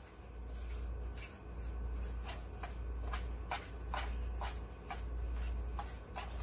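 A fork mashing and stirring softened butter in a stainless steel bowl: irregular soft scrapes and light clicks of the fork against the metal, over a steady low hum.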